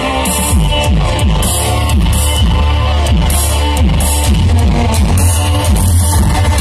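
Loud music with a fast, steady beat and heavy bass.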